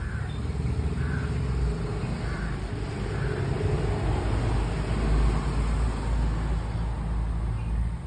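A crow cawing in short calls, about one a second, for the first few seconds, over a steady low rumble.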